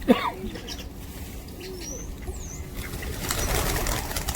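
Birds calling: a loud falling call right at the start, then a few short low calls and thin high chirps, with a rustling flurry from about three seconds in.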